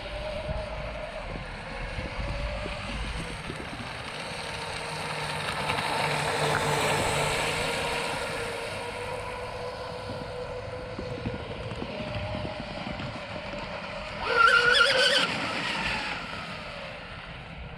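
High-speed electric RC boat (a twin-motor TFL Zonda 41) running across the water, its motors giving a steady whine. The whine swells around the middle and is loudest for about a second near the end, with some wind on the microphone at the start.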